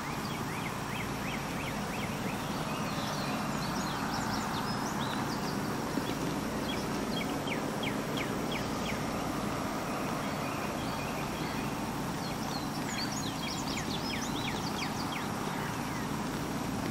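Steady outdoor background noise with a bird calling over it: two bouts of rapid, short, high chirps, the first just after the start and the second about twelve seconds in.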